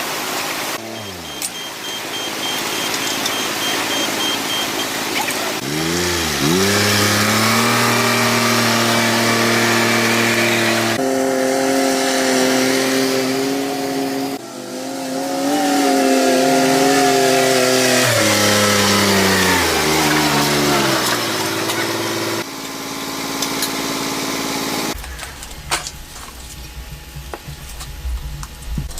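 Tractor engine revving: its pitch climbs sharply about six seconds in, holds high, and drops back about twenty seconds in, with sudden jumps in the sound along the way.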